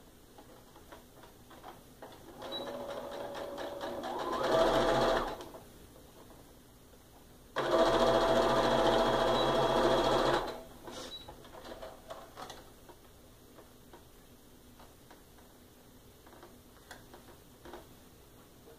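Electric sewing machine stitching a seam through fabric, in two runs: the first starts slower and speeds up before stopping, the second runs steadily at full speed for about three seconds. Faint small clicks of handling follow.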